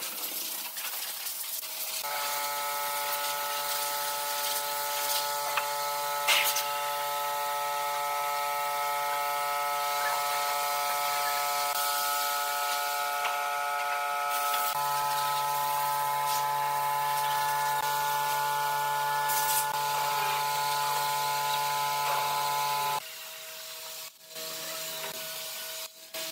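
Pine boards being handled and shifted against each other and the wooden workbench, with occasional knocks of wood on wood. A steady drone of several held pitches runs under it from about two seconds in, its lowest note changing about halfway, and stops shortly before the end.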